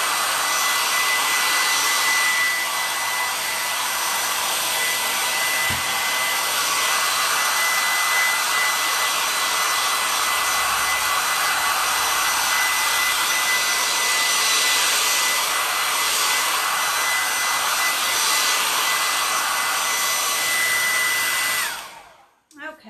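Handheld hair dryer blowing steadily, a rush of air with a thin steady whine over it; it is switched off near the end.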